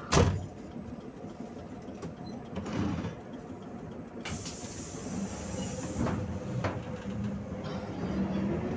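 Heard from inside a PAZ 32054 minibus, its gas-fuelled ZMZ V8 engine running at a stop. A sharp thump comes just after the start, and a hiss is heard from about four seconds in. Near the end the engine pulls the bus away and grows louder.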